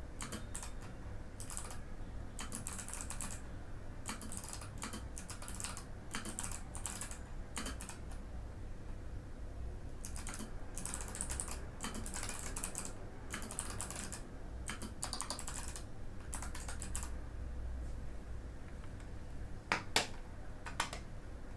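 Typing on a Mikit M65 mechanical keyboard with Box White switches: runs of quick key clicks broken by short pauses, then two louder single clacks near the end.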